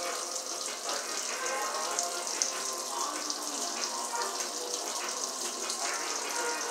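Food sizzling in a pan on a gas stove burner: a steady, crackly hiss. Faint music plays underneath.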